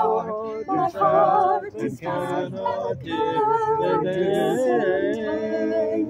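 Mixed-voice a cappella choir singing an early seventeenth-century English part-song in several voice parts, with phrases broken by short pauses for breath.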